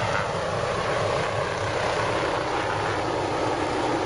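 MQ-8B Fire Scout unmanned helicopter's main rotor and turboshaft engine running steadily as it lifts off into a low hover.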